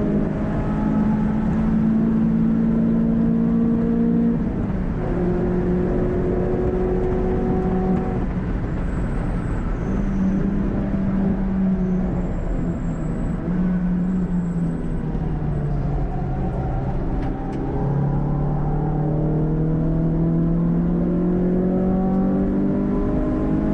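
Renault Clio 182's 2.0-litre 16-valve four-cylinder engine running hard on track with a cone filter intake, heard from inside the cabin. The engine note holds steady, steps down suddenly about four seconds in, sinks lower around the two-thirds mark, then rises steadily in pitch through the last six seconds as the car accelerates.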